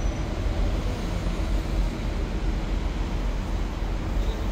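Steady city street traffic noise: a low, even rumble with no distinct single vehicle standing out.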